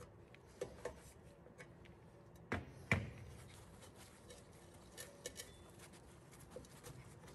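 Wrench and metal parts clicking and knocking on a drum-brake backing plate as the brake-line fitting is loosened and the old wheel cylinder is worked free. Two louder knocks come close together about two and a half to three seconds in, with lighter clicks before and after.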